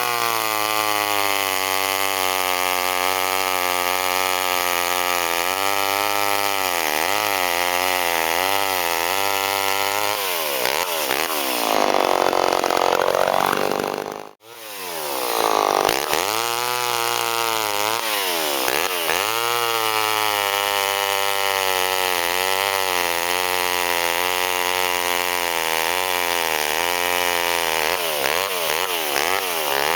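Vintage Homelite two-stroke chainsaw running and cutting wood, its engine pitch sagging under load and picking up again over and over. About halfway through the sound drops out for a moment, then the saw is heard running and cutting again.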